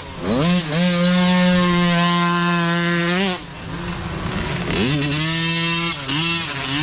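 Small two-stroke micro dirt bike engine held at high revs. The throttle is rolled off and back on: the note drops sharply right at the start, falls away for about a second and a half past the middle before climbing again, and dips briefly near the end.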